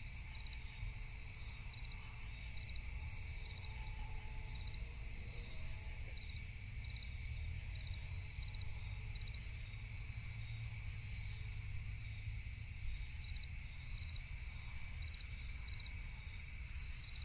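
Crickets chirping: short chirps repeating about every three-quarters of a second over a steady high insect hiss, with a faint low rumble underneath.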